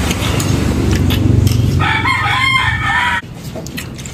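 A rooster crows once, about two seconds in, over a steady low rumble that cuts off as the crow ends.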